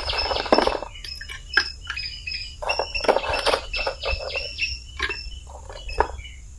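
Irregular clinks and clatters of broken clay roof-tile pieces knocking together as they are handled in a plastic tub and laid into a cement pot, over a steady high chirring of insects.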